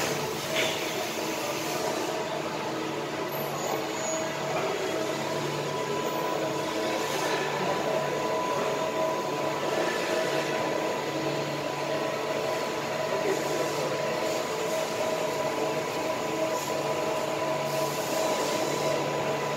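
Mazak Integrex 200-IV turning and milling centre machining: the main spindle turns the chucked workpiece while a small tool in the milling spindle cuts at its centre. The machine runs steadily with a constant whine, and a second, higher whine comes in about five seconds in.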